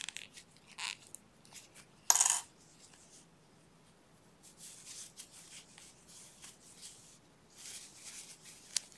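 Hand crocheting: yarn being pulled through stitches with a crochet hook, making soft scattered rustles and light ticks. About two seconds in there is one louder sound lasting under half a second, and a sharp tick near the end.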